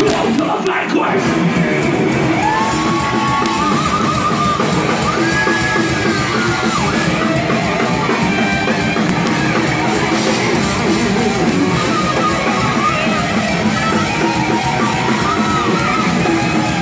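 A thrash metal band playing loud and live, heard from within the crowd: distorted electric guitars, bass and drums, with held, pitch-bending high lines over the top several times from about two seconds in.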